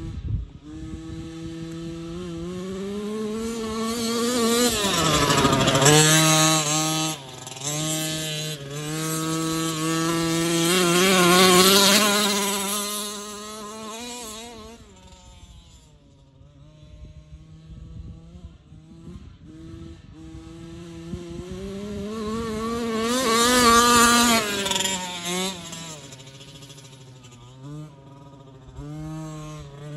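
Two-stroke gas engine of a Losi 5T 1/5-scale RC monster truck revving up and down as the truck is driven. The engine swells loud three times as it is throttled hard and passes close, with its pitch dropping as it goes by about five seconds in. It settles to a steadier idle-like note near the start and end.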